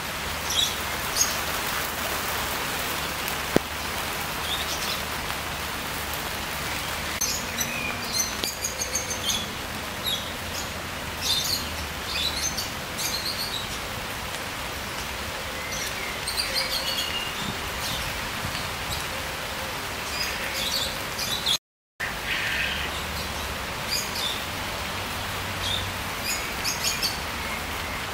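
Hidden songbirds singing in short, repeated chirping phrases over the steady hiss of rain falling on the trees. The sound cuts out for a moment about three-quarters of the way through.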